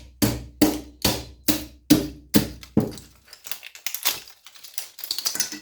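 Hammer striking a scrap TV deflection yoke about seven times in a steady rhythm, roughly two and a half blows a second, to crack it apart for its copper. Lighter clinking and rattling follow in the last couple of seconds.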